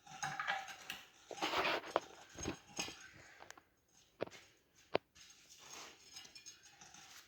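Rubber scraping and rubbing as a dirt-bike rear tire with a mousse insert is forced onto its wheel rim by hand, with a few sharp clicks in the second half.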